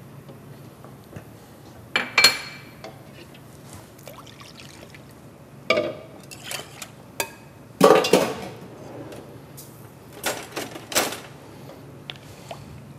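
Kitchen utensils clinking and scraping against pots and a glass mixing bowl in a handful of separate clatters, the loudest about eight seconds in, with liquid being stirred.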